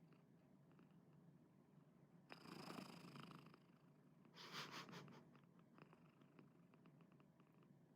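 Domestic cat purring quietly while dozing, with two louder raspy, snore-like breaths about two and a half and four and a half seconds in. The owner calls it snoring but takes it for purring.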